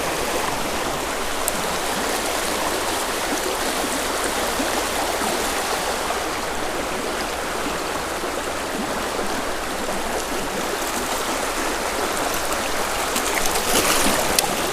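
Creek water rushing and burbling steadily, the flow up a little after recent rains. Near the end the water noise briefly gets a little louder and brighter, with a few small clicks.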